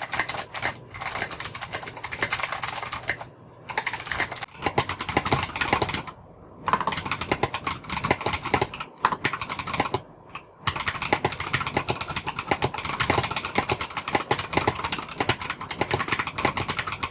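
Mechanical keyboard with Kailh Box Jade-type click-bar switches being typed on fast. The result is a dense run of sharp, clicky keystrokes, broken by brief pauses three times.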